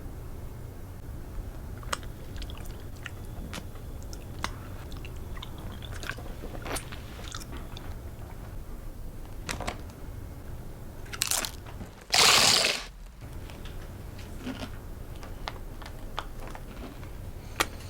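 Doritos tortilla chips being crunched and chewed: scattered short, crisp crunches. About twelve seconds in comes a louder rush of noise lasting about a second.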